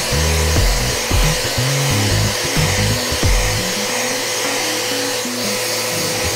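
Electric random orbital sander with a dust-extraction hose running at a constant pitch, sanding the face of an English willow cricket bat. The sander runs under background music with a moving bass line.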